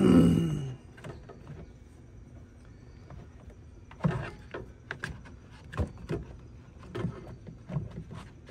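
Plastic coolant overflow tank knocking and rubbing against the parts of a Sprinter van's engine bay as it is worked into its mount. A louder rub with a falling tone comes right at the start, then irregular hollow bumps and clicks in the second half.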